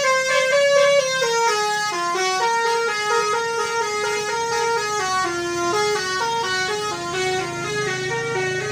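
Tour bus's basuri musical horn playing a tune: a string of held, reedy notes stepping up and down in pitch, with two notes sounding together in the first second.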